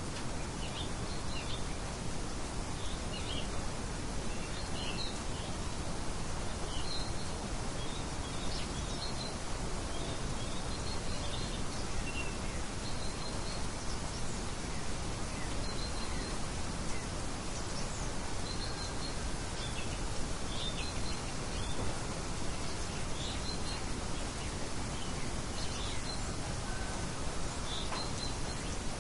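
Steady rushing wind noise with small birds chirping over it: short, high chirps about once or twice a second.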